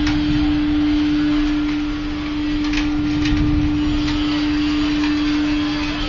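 Biomass sawdust burner running at full fire: a steady rush of air and flame with a constant hum. A few faint crackles come about halfway through.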